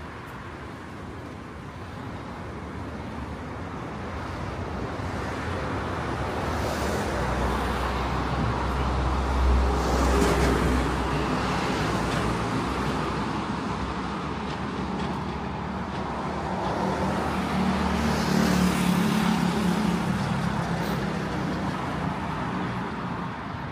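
Road traffic passing on a city street: the sound swells and fades as vehicles go by, with a deep engine rumble peaking about ten seconds in and another engine hum rising and fading near the end.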